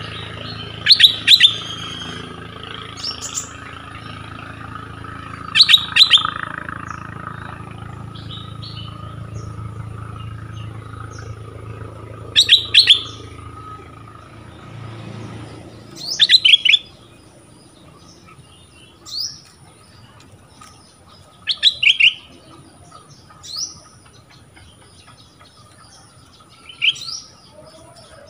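Stripe-throated bulbul singing short, loud bursts of notes every few seconds, with quieter rising whistles in between. A low steady hum underneath stops about halfway through.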